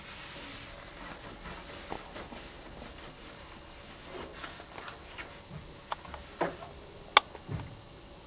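Gloved hands wiping a desktop computer case with a cloth: soft rubbing and handling noise, with a few light knocks and one sharp click in the second half.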